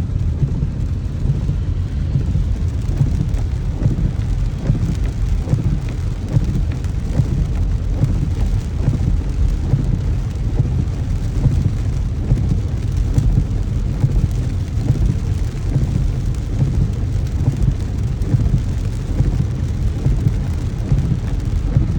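Heavy rain falling steadily, a continuous patter over a strong low rumble.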